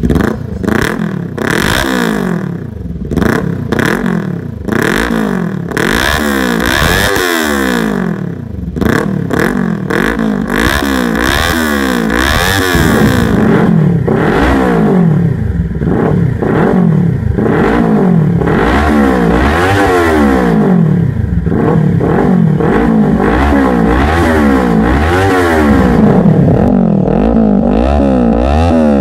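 Kawasaki Ninja 400's parallel-twin engine, breathing through a DRIFT XAUST slip-on exhaust, revved over and over in neutral: quick throttle blips, each rising and falling in pitch, one after another with little idle between.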